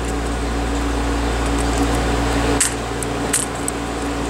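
Steady low hum and hiss of a fan-like machine, with a few faint small clicks about two and a half and three and a half seconds in, as a plastic spudger and fingertips work at a flex-cable connector inside an iPhone 5.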